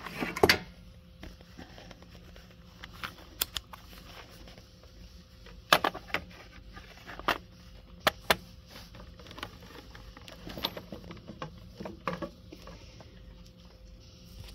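Handling noise: irregular sharp clicks, taps and rustles as multimeter probes and the phone are moved about over a wooden workbench, with a faint steady hum underneath.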